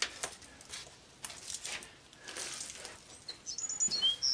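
A few light clicks and rustles of cut motor lead wires being handled and tossed into a scrap-wire bucket. Birds chirp briefly near the end.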